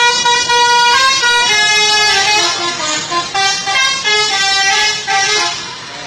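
Telolet bus horn, a multi-trumpet air horn, playing a tune of short stepped notes, several tones sounding together.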